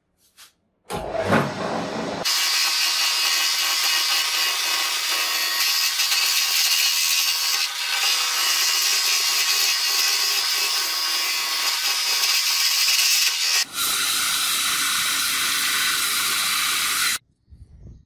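Metal lathe cutting a wooden block, the tool shaving the spinning wood down to a round tenon: a steady, loud cutting noise over the machine's running, changing in tone a few seconds before the end and cutting off suddenly near the end.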